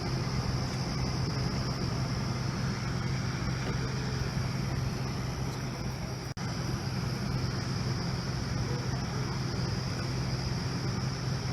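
A steady low mechanical rumble with a constant high hiss over it, briefly cutting out about six seconds in.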